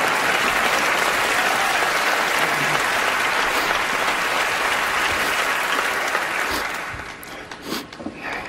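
Large audience applauding steadily, the clapping dying away about seven seconds in.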